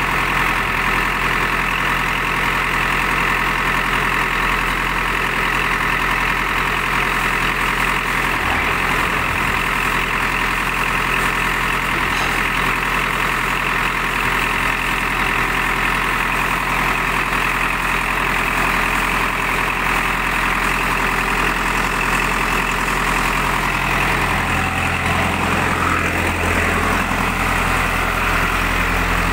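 JCB 3D backhoe loader's diesel engine idling steadily; its low rumble grows stronger a few seconds before the end.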